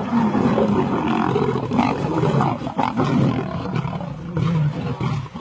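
Several lions growling and roaring over one another without a break as they fight among themselves within the pride.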